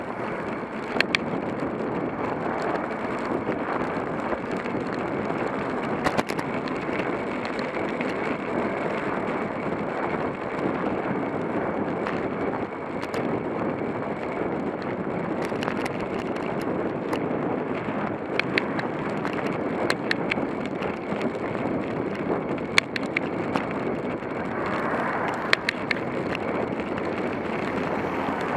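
Steady wind rush on the microphone and tyre noise of a road bicycle climbing along the road edge, with scattered sharp clicks and a car passing near the end.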